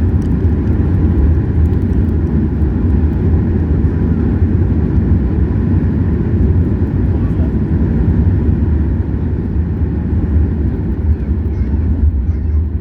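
Steady low rumble in the cabin of a Boeing 737 MAX 8 as it rolls along the ground just after landing.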